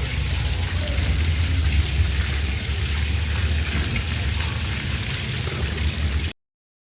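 Water gushing and splashing steadily from a pipe under pressure, over a steady low rumble. It cuts off abruptly about six seconds in.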